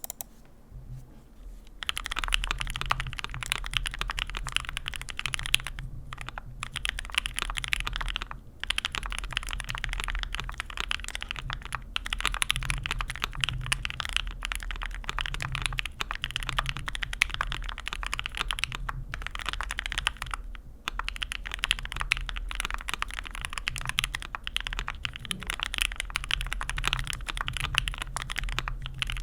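Fast continuous typing on a Vega keyboard with an aluminium plate and PBT keycaps, fitted with lubed Creamsicle frankenswitch linear switches: a dense run of clacky keystrokes. It starts about two seconds in and breaks off briefly a few times.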